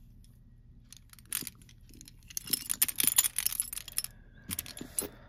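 Silver-tone metal panel necklace with enamel panels and a rolo chain clinking and rattling as it is handled, small sharp metallic clicks. The clicks start after a quiet first second, are thickest in the middle, pause briefly and return near the end.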